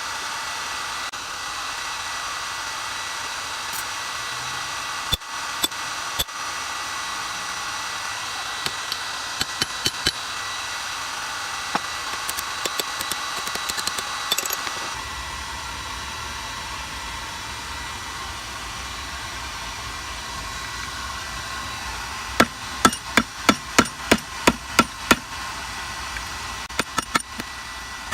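Blacksmith's hammer striking hot steel on an anvil: scattered single blows, then a quick run of about a dozen blows near the end, over a steady rushing noise.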